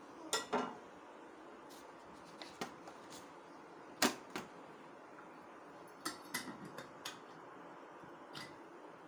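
Scattered sharp taps and clicks from an aluminium foil tray being handled against a stovetop. The loudest tap comes about four seconds in, with a quick run of smaller ones a couple of seconds later.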